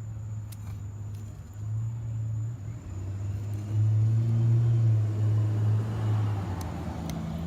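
A low, steady engine hum with a clear pitch. It grows louder a little before the middle and stays up for about two and a half seconds, then eases back.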